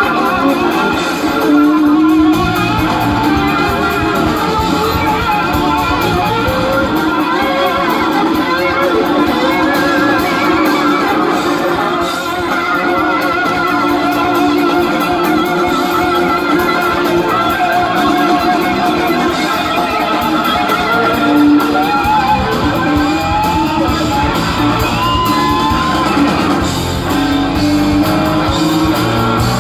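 Live rock band jamming: two electric guitars play lead lines that waver and glide in pitch, over drums.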